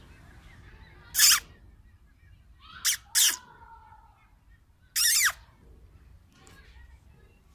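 Four short, loud, high-pitched animal calls: one about a second in, a quick pair around three seconds in, and a longer one about five seconds in that falls in pitch at its end.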